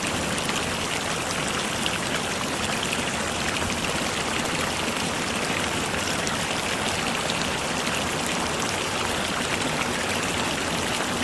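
Steady rushing noise of falling or running water.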